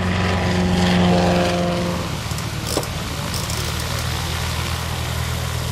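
Propeller engine of a high-wing light aircraft running as it taxis on grass. It swells to its loudest about a second in, then runs steadily.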